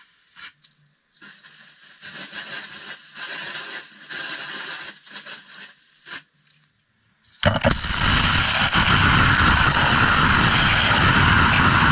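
Pressure washer spraying water onto a cargo e-bike: short, broken bursts of spray at first, then from about seven and a half seconds in a loud, steady blast of spray close to the microphone.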